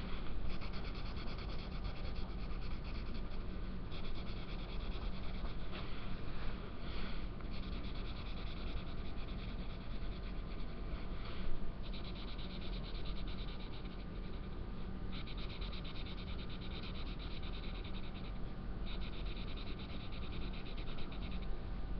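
Black felt-tip marker scribbling on paper, filling in stripes with continuous scratchy strokes. Several stretches of steadier scratching start and stop throughout.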